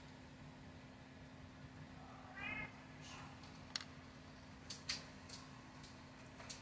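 A few light clicks and taps of reel parts being handled: the greased spool, brush and side plate. They are preceded about two seconds in by a short, faint pitched cry.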